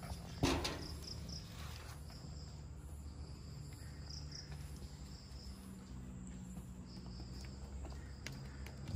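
Insects chirping in a faint high trill that comes and goes, over a steady low hum, with a single brief knock about half a second in.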